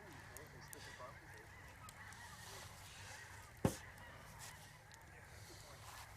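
Faint honking bird calls, with one sharp knock about three and a half seconds in.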